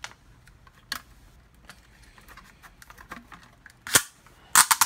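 Small clicks and taps of hands handling a panel-mount controller, its plastic mounting bracket and a thin sheet-steel panel, with a sharp clatter about four seconds in and a quick cluster of louder clicks just before the end.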